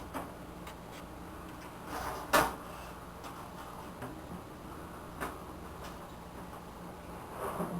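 Desktop computer case being taken apart by hand: scattered light clicks, one sharp knock about two and a half seconds in and another click about five seconds in.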